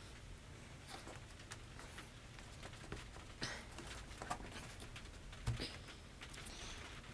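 Faint handling noises of a hose fitting and rubber hose being worked into a wooden case: light scattered clicks, taps and scrapes, with a couple of sharper clicks about three and a half and five and a half seconds in.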